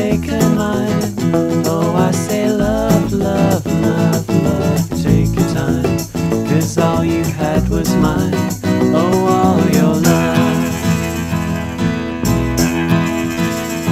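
Band music with guitar and a steady bass and percussion bed, recorded on analogue tape. A lead melody bends in pitch, then gives way to held chords about ten seconds in.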